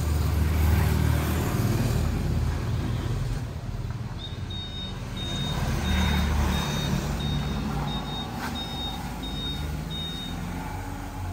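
Small pickup truck's engine running as it manoeuvres out, with a reversing alarm beeping evenly, about one and a half short high beeps a second, starting about four seconds in and stopping shortly before the end.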